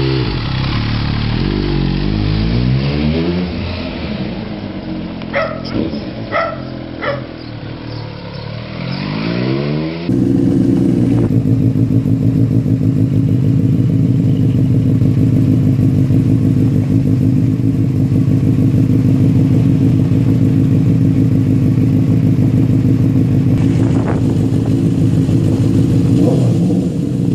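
Benelli TNT three-cylinder engine revved on its stock exhaust, the revs rising and falling, with a few sharp cracks near the middle. After a cut, a second Benelli TNT runs steadily and loudly through an aftermarket Two Brothers exhaust, with a small blip of revs near the end.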